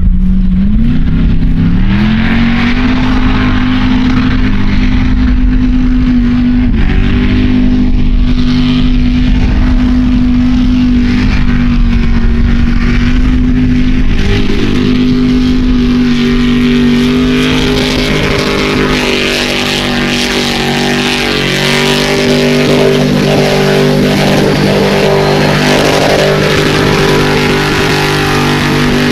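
Formula offroad competition buggy's engine at full throttle. It revs up in the first couple of seconds, then holds at high revs with a steady pitch throughout the run.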